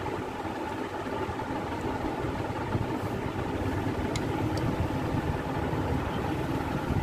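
Steady engine-like hum of an idling motor in the background, with two faint clicks a little past halfway.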